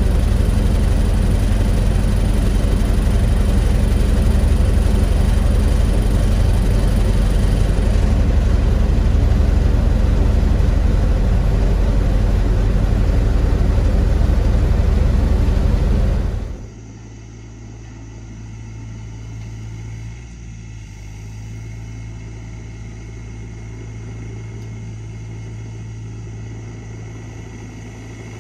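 Mini excavator's diesel engine running steadily, loud and close from inside the cab. About two-thirds of the way through it drops suddenly to a much quieter, steady engine hum from a Sany SY35U mini excavator working further off.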